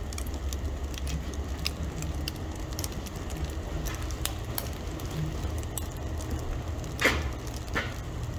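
Charcoal fire burning in a steel grill's firebox: a steady low rush with scattered crackles and pops, two louder pops near the end.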